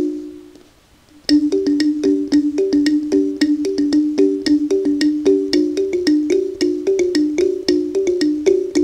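Kalimba (thumb piano) improvisation: a few ringing notes die away into a short pause, then quick plucked notes start again about a second in, moving between two or three close pitches in a steady repeating three-against-four pattern.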